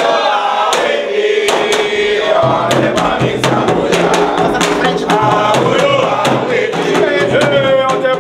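Candomblé ritual chant sung by a group of voices, with sharp percussion strikes joining about a second in and coming quicker through the rest.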